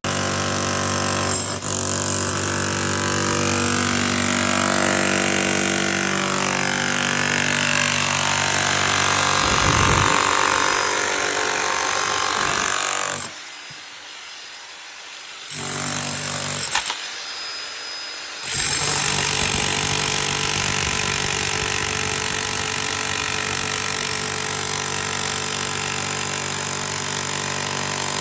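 Demolition hammer running and pounding concrete to break out a slab, a steady rapid hammering drone. It stops for a couple of seconds just past the middle, runs lighter briefly, then resumes at full power.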